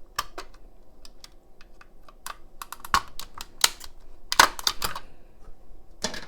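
Irregular sharp clicks and clatter of the PS5 power supply's cover being worked loose and handled, louder snaps about three seconds in and again between four and five seconds.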